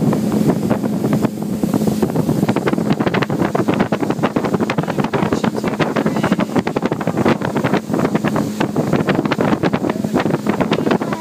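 Speedboat under way at speed: a steady low engine hum under heavy wind buffeting on the microphone and rushing water.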